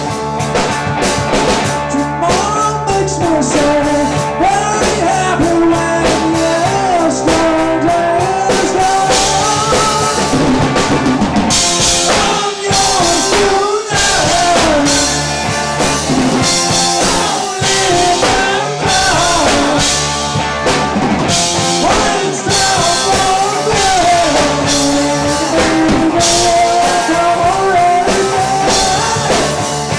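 A rock band playing live: electric guitar, electric bass and drum kit, loud and continuous.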